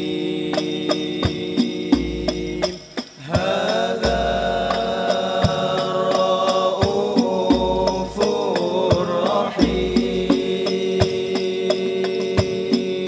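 Banjari ensemble: men singing sholawat, Islamic devotional song, in unison over rebana frame drums struck in a steady rhythm. About three seconds in the music drops out briefly, then the voices return with a long ornamented melody over the drums.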